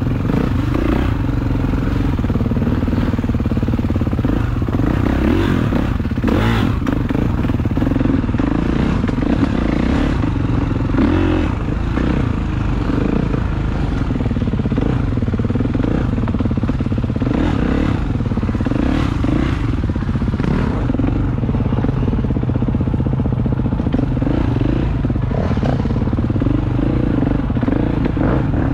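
Dirt bike engine running close to the microphone as it rides along a rough dirt trail, its revs rising and falling, with occasional short knocks.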